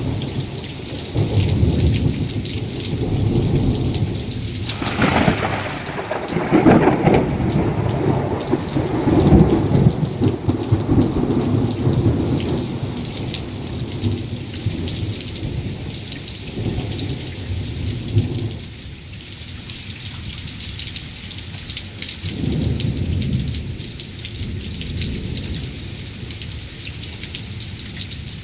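Heavy rain hissing steadily, with rolling thunder: a sharp clap about five seconds in that rumbles on until about eighteen seconds, then a second, shorter rumble a few seconds later.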